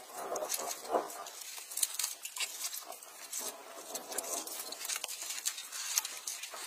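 Watermelon being bitten and chewed: a run of irregular, crisp crunching clicks.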